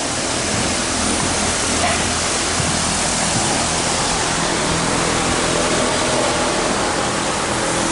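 A loud, steady rushing hiss with no pitch, spread evenly from low to high.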